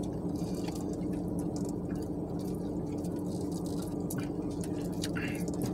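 Quiet sipping through a straw from a fountain-drink cup and soft chewing, with small scattered clicks, over a steady low hum in a car's cabin.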